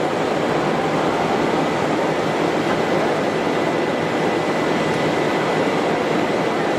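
PP/PET strapping extrusion line running: a steady, even machinery noise from the extruder and its drive, with a faint steady high tone over it.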